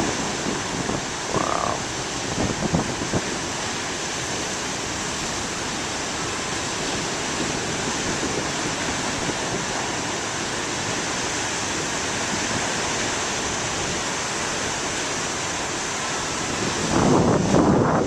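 Big waves breaking on the shore: a steady rush of surf. Near the end, wind buffets the microphone.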